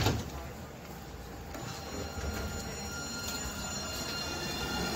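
Light-rail tram at a platform: a thud at the very start as its doors shut, then from about two seconds in the electric drive whines in several thin steady tones over a low rumble that slowly swells as the tram starts to pull away.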